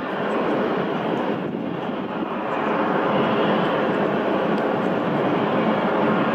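Jet airliner engines running, a steady rushing noise that swells slightly about two and a half seconds in.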